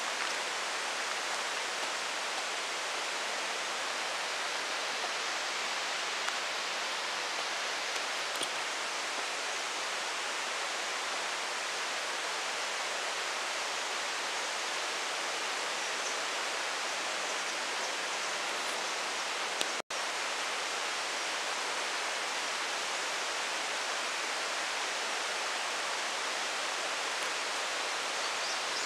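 Steady, even hiss of outdoor background noise with no distinct events. It drops out for an instant about two-thirds of the way in.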